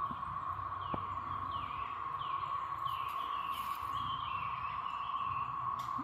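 Steady chorus of 13-year periodical cicadas of the Great Southern Brood (Brood XIX): a continuous even drone. Over it, a bird gives a run of short, falling chirps in the middle.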